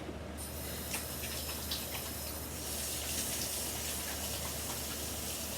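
Water running from a tap as hands are washed under it, a steady splashing rush that grows stronger about two and a half seconds in.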